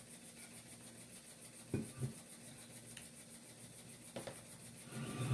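Quiet room tone with faint rubbing and a few soft knocks, two close together about two seconds in and another near four seconds, as a drink cup is handled and set down on a wooden tray.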